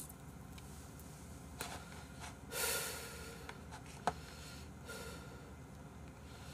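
A person sniffing and snorting through the nose, with one loud, sharp sniff about two and a half seconds in and a single short click a little later. The sniffs come from someone reeling from the burn of very spicy kimchi.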